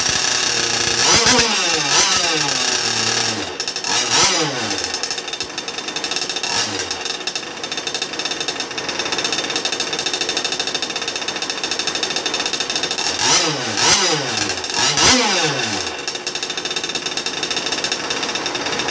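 The small engine of an Expresscraft C-68 deep-vee RC model boat running on the bench at its first test fire. It is blipped on the throttle about five times, the revs rising and falling back each time: a cluster in the first few seconds and two more past the middle. Between blips it holds a steady higher idle.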